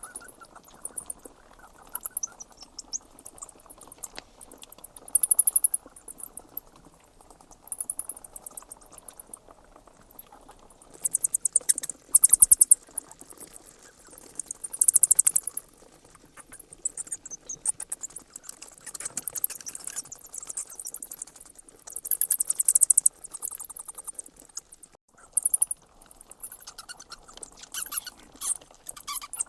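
Bats squeaking and chittering: rapid, high-pitched trains of squeaks in bouts a second or two long, coming again and again over a steady low background hiss.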